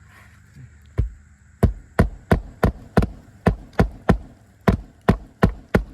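Hammer driving roofing nails through an asphalt shingle: about a dozen sharp strikes, two or three a second, starting about a second in.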